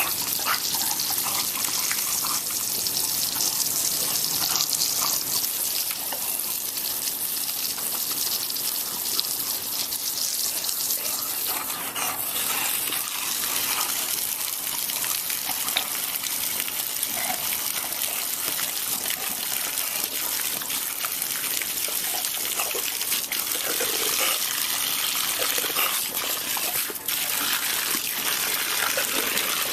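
Steady rush of spraying water, a constant hiss strongest in the high range.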